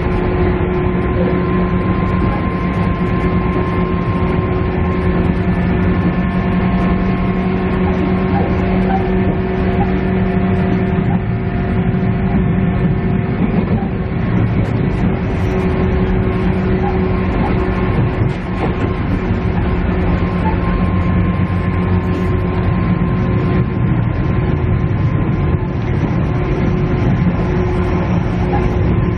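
Inside a KiHa E130 diesel railcar under way: the steady drone of its diesel engine and transmission, with several held hum tones over continuous wheel-and-rail noise.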